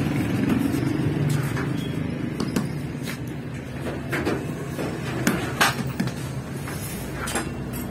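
Low rumble of street traffic that eases over the first couple of seconds, then scattered knocks and clatter from work inside a flatbread bakery.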